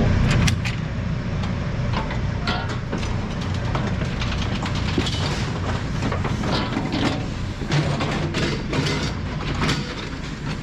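A steady low mechanical hum with irregular knocks and clatter over it.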